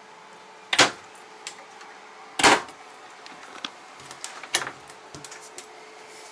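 Three sharp knocks, the second the loudest, with a few lighter clicks between them.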